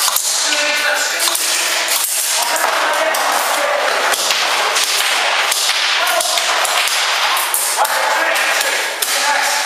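Airsoft guns firing: irregular sharp snapping shots, many in quick succession, with voices calling out at times.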